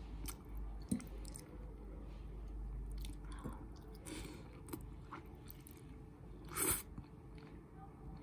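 Close-miked chewing and biting of spicy sauced instant noodles, with scattered small clicks and one louder, short rushing burst about two-thirds of the way in.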